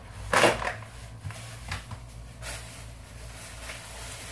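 Plastic-wrapped meat package crinkling sharply as it is set down on a pile of groceries about half a second in, followed by a few faint rustles and light knocks of handling.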